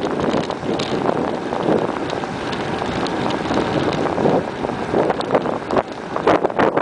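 Wind rushing and buffeting over the microphone of a camera riding on a moving bicycle, with a few short knocks or rattles near the end.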